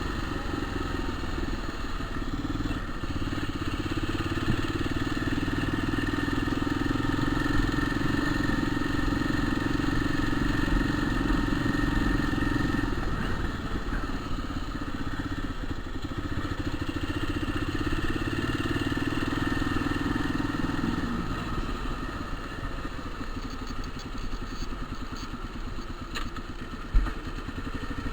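Motorcycle engine running while the bike is ridden, a steady drone that eases off about three quarters of the way through, with a single sharp knock near the end. The bike's gearbox shifts badly and growls in third gear, which the owner suspects is a worn bearing.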